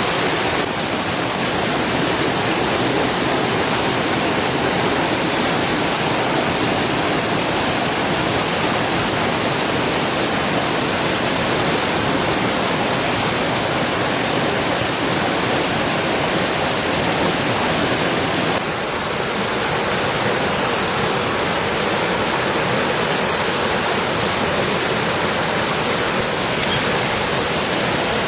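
Heavy rain falling steadily, a dense even hiss with no let-up; its tone shifts slightly about two-thirds through.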